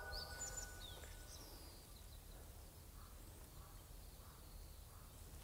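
Near silence: faint outdoor ambience with a few short, high bird chirps in the first second.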